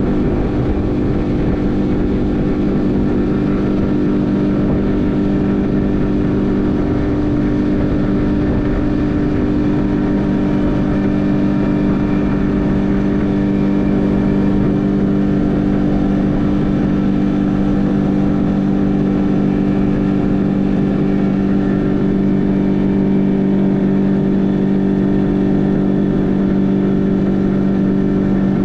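Outboard motor on a Crestliner 1650 Fish Hawk aluminium fishing boat running at a steady speed, its drone holding one pitch throughout.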